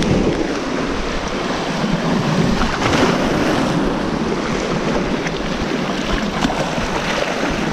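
Sea surf surging and washing over rocks at the water's edge, with strong wind buffeting the microphone.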